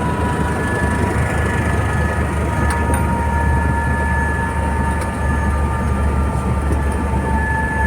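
Helicopter running steadily: a constant deep rotor and engine rumble with a steady high turbine whine of several tones over it.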